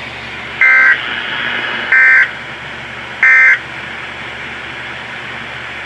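Three short data bursts of an EAS/SAME end-of-message signal, each about a third of a second long and about a second apart, marking the end of a broadcast weather alert. A steady hiss runs underneath.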